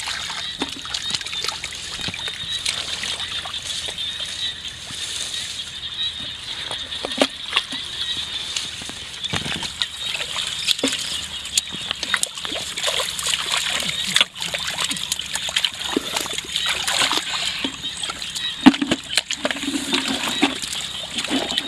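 Shallow water splashing and sloshing in many irregular splashes, as people wade and grope for fish by hand.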